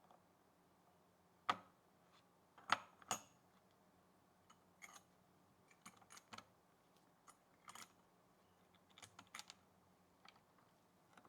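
Scattered light clicks and taps of computer parts being handled and fitted during a PC assembly, with three sharper clicks in the first few seconds and irregular softer ones after.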